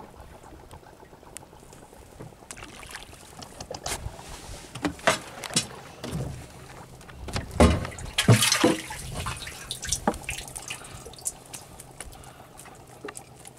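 Water splashing and sloshing in a boat's live-bait well as a hand net scoops out live bait fish, in a run of irregular splashes from about five to nine seconds in.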